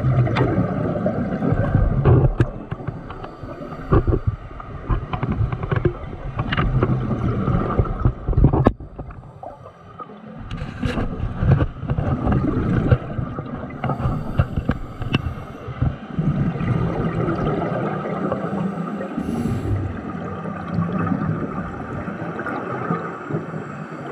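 Underwater bubbling and gurgling that rises and falls irregularly, with scattered sharp clicks and crackles.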